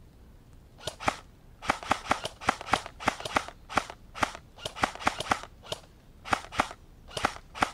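Airsoft guns firing single shots: a quick series of sharp cracks, starting about a second in and going on in irregular clusters of two to four a second.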